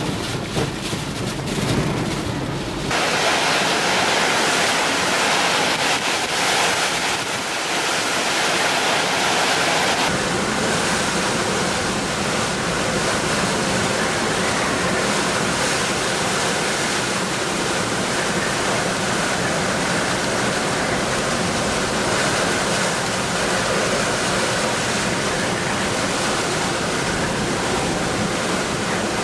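Hurricane-force wind, gusting around 100 mph, with wind-driven heavy rain: a loud, dense, steady rush. The sound shifts abruptly twice, about three and ten seconds in.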